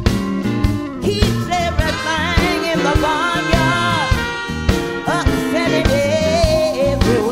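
Soul-blues band playing between sung lines: drums keep a steady beat under a wavering, bending lead melody.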